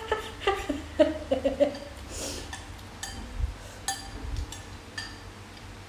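Metal spoons clinking against ceramic bowls and plates while eating: several separate, short ringing clinks in the second half.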